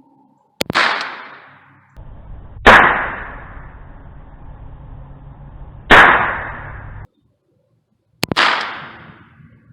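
Four single .22 rimfire shots from an AR-15 pistol running a .22 conversion kit, fired a few seconds apart at an uneven pace, each sharp crack followed by a trailing echo.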